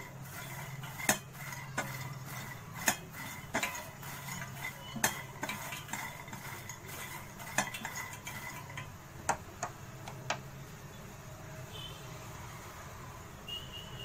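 Fried makhana (fox nuts) being stirred with a spatula in a steel pot: a dry rustle and rattle of the puffs, with sharp knocks of the spatula against the pot about eight times, mostly in the first ten seconds, then quieter.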